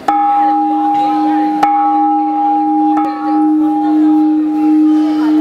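Large temple bell struck three times with a wooden pole, about a second and a half apart. After each strike it rings on in a long, steady tone that pulses slowly in loudness.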